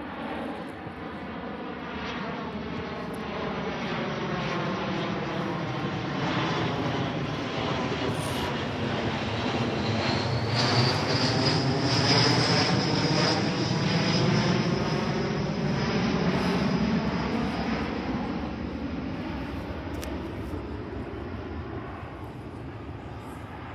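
Embraer C-390's twin IAE V2500 turbofan engines on a flyby, growing louder to a peak about halfway through and then fading away. A high whine comes in near the loudest point.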